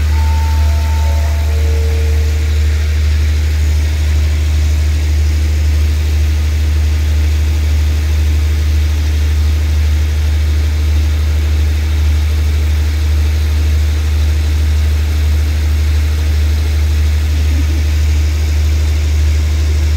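Diesel engine of a stationary passenger train idling, a steady low drone at an even level. A short run of four tones steps downward in pitch during the first three seconds.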